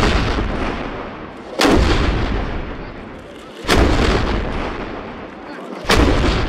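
Ceremonial wheeled cannons firing gunpowder salute rounds in turn: three loud blasts about two seconds apart, each followed by a long echo dying away.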